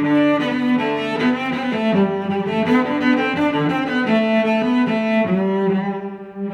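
Background instrumental music played on bowed strings, with several notes sounding together and changing every fraction of a second.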